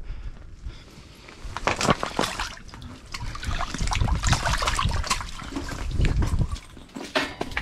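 A lake trout splashing in an ice-fishing hole as it is hauled out, with irregular sloshing and water running off the fish back into the hole.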